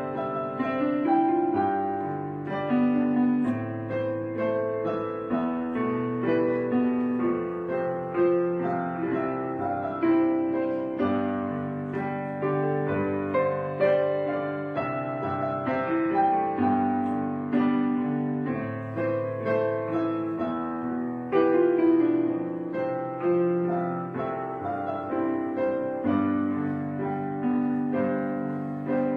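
Slow solo piano music, with notes struck and left to ring.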